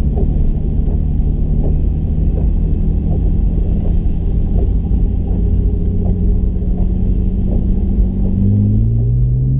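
Porsche engine running steadily at low revs, with faint irregular ticks over its hum and a slight rise in pitch about eight and a half seconds in. It is an engine being checked for misfires.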